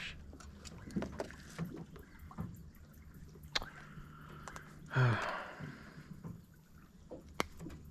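Light clicks and knocks of hands and tackle against an aluminium jon boat while a swallowed hook is worked out of a shellcracker's mouth, with a short grunt about five seconds in.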